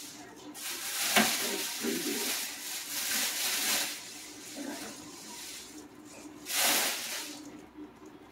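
Plastic packing wrap rustling and crinkling as it is handled and pulled out from inside an automatic litter box: a long rustle, then a shorter one about three seconds later.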